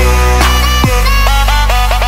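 Electronic music with a heavy, steady bass and synth notes that slide in pitch, with a sharp downward sweep about a second in.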